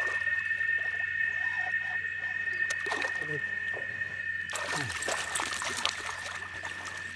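A hooked peacock bass thrashing and splashing at the water's surface beside the boat, starting suddenly about four and a half seconds in and going on to the end.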